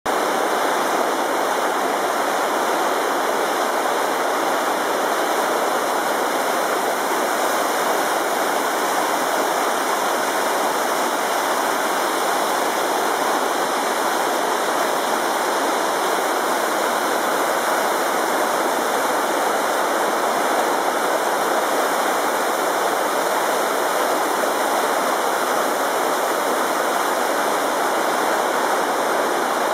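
Carbon River, a silty glacial meltwater river in spate, rushing over a stony bed through whitewater rapids. It makes a loud, steady rush of water with no let-up.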